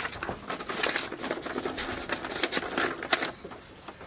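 A sheet of paper rustling and crinkling as it is handled, with scattered small clicks.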